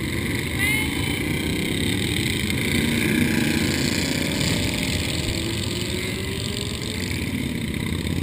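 Several motorcycle engines running at low speed together, with one engine's pitch rising slowly over a few seconds as it pulls away.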